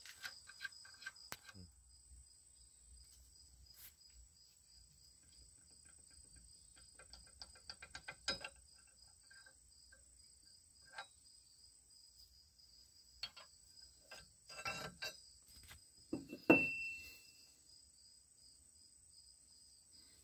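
Faint, scattered metal clicks and clinks of a steel connecting rod and cap being fitted to a crankshaft journal for a Plastigage clearance check. There is a cluster of knocks about fifteen seconds in, then the loudest knock, which rings briefly. A high, pulsing chirp runs underneath throughout.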